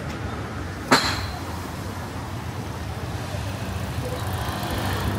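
Road traffic on a city street, with a car engine running close by that grows louder toward the end. A single sharp knock sounds about a second in.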